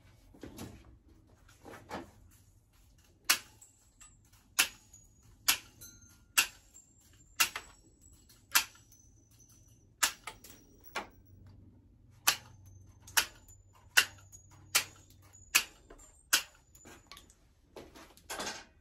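Nails being driven into the wooden frame: about fourteen sharp strikes, roughly one a second starting about three seconds in, each with a brief high metallic ring.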